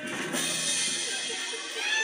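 Live rock band of electric guitar and drum kit playing, the drums to the fore with a cymbal crash about a quarter-second in, heard through a television's speaker.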